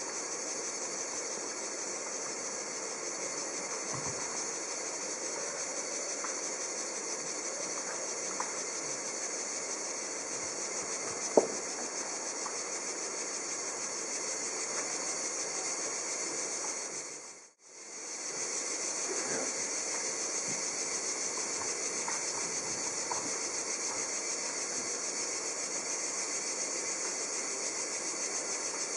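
Steady background hiss with no music or speech, with one short sharp click a little before the middle. The hiss fades almost to nothing and back about two-thirds of the way through.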